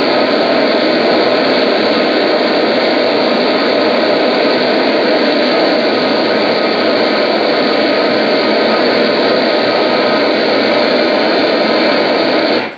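Loud, steady wall of amplified harsh noise from a live noise-music performance: a dense, unchanging rush with a few faint steady tones in it, which cuts off abruptly near the end.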